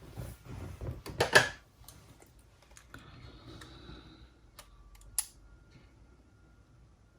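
Clicks and rustling of a portable cassette player's small plastic and metal parts being handled as it is taken apart. A burst of sharp clicks about a second in is the loudest, with softer scraping later and one more sharp click about five seconds in.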